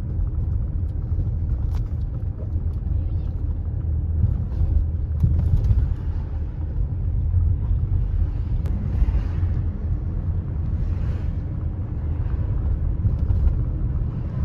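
Steady low rumble of a moving vehicle's engine and motion, with some wind on the microphone.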